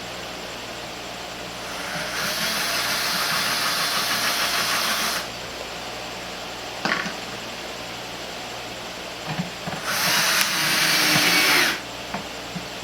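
Electric screwdriver driving in two small screws, two runs of a few seconds each, with a short knock between them.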